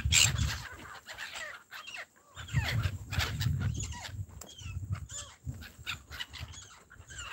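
A flock of gulls crying over and over, many short overlapping cries rising and falling in pitch as they crowd in to be fed. Low gusty rumbles of wind on the microphone come and go underneath, heaviest near the start and again a few seconds in.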